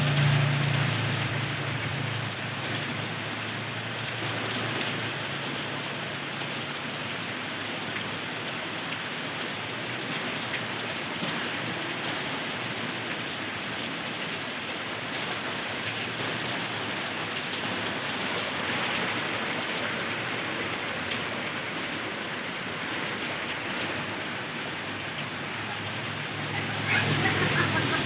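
Heavy rain pouring steadily onto floodwater. A low hum fades out over the first few seconds and comes back near the end.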